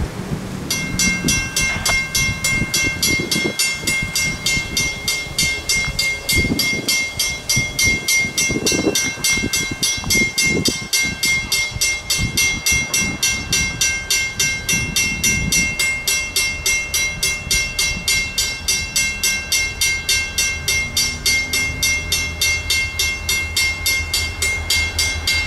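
Railroad grade-crossing bell starting up suddenly about a second in, then ringing in rapid, even strokes. A low steady hum joins it past the halfway mark.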